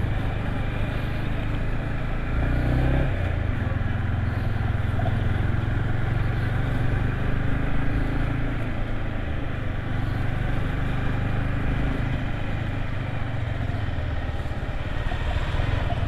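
Yamaha MT-15 V2's 155 cc single-cylinder engine running steadily as the motorcycle is ridden, with a brief change in its note about three seconds in.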